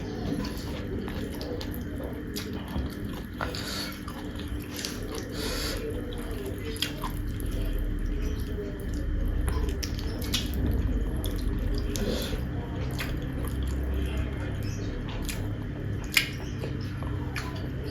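Wet, close-miked eating sounds: irregular mouth clicks and smacks of someone chewing, with a few sharper clicks, over a steady low hum.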